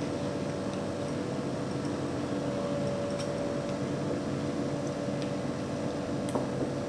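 A steady mechanical hum with a few faint clicks.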